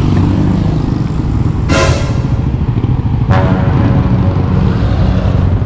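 Motorcycle engine running at low road speed under a steady rumble of road and wind noise, with two sudden sharp noises, each dying away quickly, about two and three seconds in.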